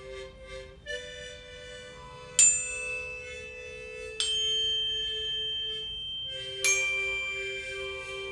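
Meditation background music: a soft, pulsing held tone with four struck, bell-like notes that ring on, the second and fourth the loudest.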